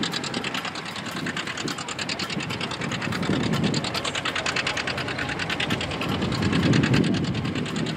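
John Deere R two-cylinder diesel engine pulling a plow under load, running with a steady, rapid, even exhaust beat.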